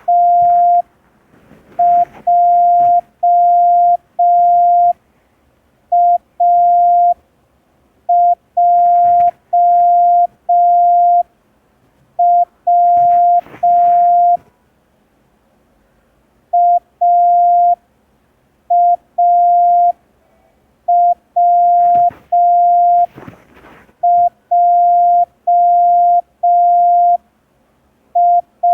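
Morse code practice tone: a single steady beep keyed slowly in dots and long dashes with pauses between letters, sending random groups of the letters A, W and J for a copying drill.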